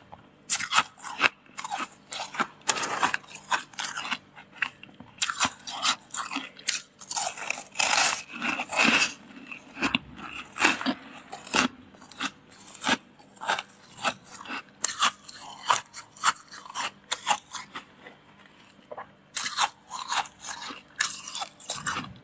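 Freezer frost being bitten and chewed: a dense run of quick, crisp crunches with a short pause about three quarters of the way through.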